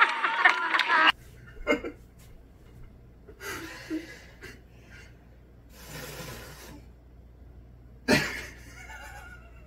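For the first second, gasps and laughter from a group, cut off abruptly. Then a quiet room with a steady low hum and a few faint stifled snickers and breaths. About eight seconds in, a pie is pushed into a sleeping woman's face with a sudden soft smack, followed by a short startled voice.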